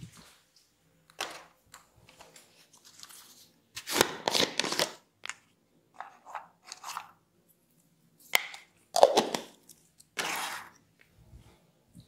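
A small plastic container being handled and opened close to the microphone: irregular crinkling and crunching bursts, loudest about four seconds in and again about nine to ten seconds in.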